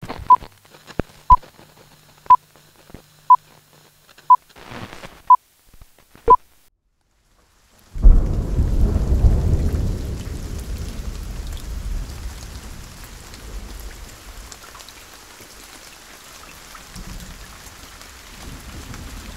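Film-leader countdown beeps: a short high beep once a second, seven times, over faint clicks and a low hum. Then, after a second of silence, a sudden loud thunderclap that rumbles away over several seconds into steady rain.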